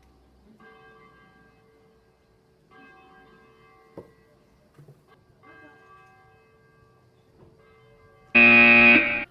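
Church bell tolling slowly and faintly, one ringing strike every two to three seconds, each fading out. Near the end a loud buzzing tone sounds for just under a second.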